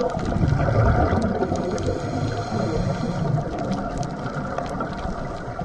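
Underwater scuba ambience: a low gurgling rumble of a diver's exhaled regulator bubbles during the first three seconds or so, over a steady watery hiss with scattered faint crackling clicks.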